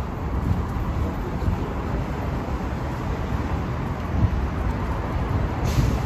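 City street ambience: a steady low rumble of road traffic, with a brief hiss near the end.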